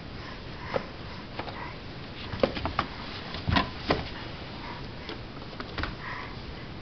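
A baby crawling on a hardwood floor: scattered light taps and knocks of hands and knees on the boards and board books, the loudest a pair about three and a half seconds in.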